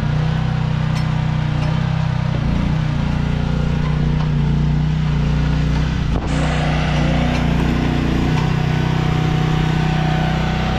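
Chery mini excavator's small engine running steadily while the machine is worked, with a brief dip about six seconds in.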